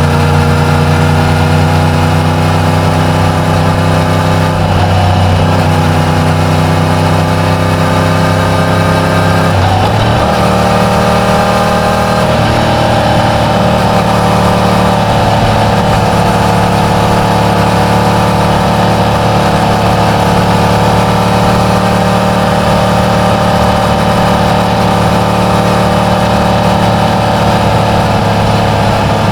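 Yamaha MT-10's crossplane inline-four engine on its stock exhaust, running at a steady engine speed. Its note changes abruptly about ten seconds in, then holds steady again.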